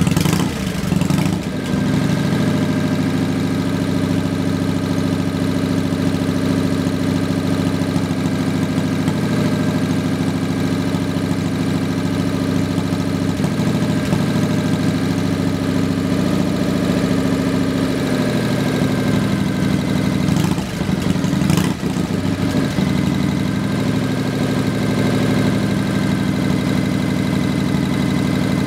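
A 1957 Harley-Davidson Panhead V-twin idling through a vintage muffler with a low, thick exhaust note. The steady beat breaks briefly about 20 seconds in, then settles back to idle.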